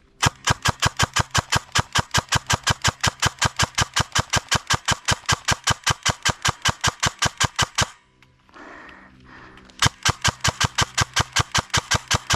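Airsoft gun firing a long, evenly paced string of shots, about six a second. The shots stop for about two seconds, then a second string starts near the end.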